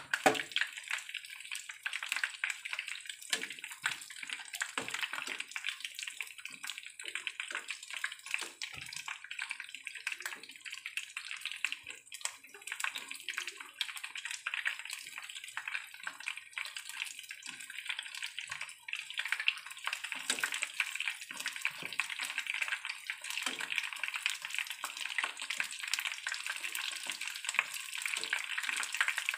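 Battered chicken pieces deep-frying in hot oil in a pan: a steady crackling sizzle, with occasional light knocks of tongs against the pan as the pieces are turned.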